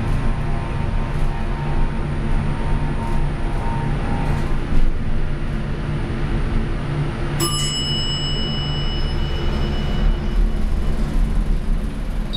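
Midstate hydraulic elevator car travelling with a steady low hum. About seven and a half seconds in, its mechanical arrival bell strikes once and rings down over a couple of seconds as the car reaches the floor.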